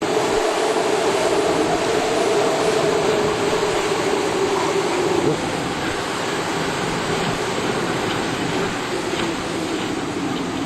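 Hurricane wind and storm surf making a steady, loud roar on a camcorder microphone.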